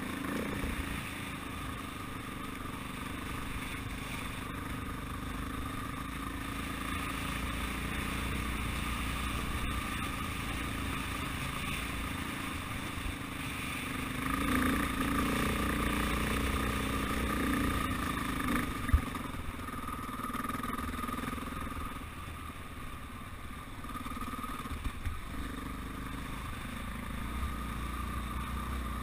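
Dirt bike engine running steadily while riding a gravel track. It gets louder for a few seconds around the middle, and there is a single sharp knock about two-thirds of the way through.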